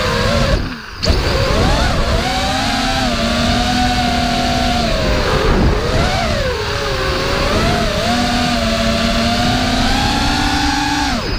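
Racing quadcopter's brushless motors and propellers whining as heard from the onboard camera, pitch rising and falling with the throttle. About a second in the throttle is cut briefly and the sound drops away, then comes back sharply. The pitch falls again near the end.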